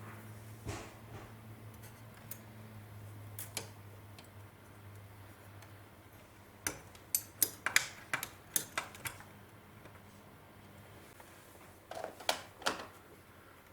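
Sharp clicks and taps of handling a cassette deck's parts: a quick run of about eight around the middle and three more near the end, over a low steady hum that fades out in the first few seconds.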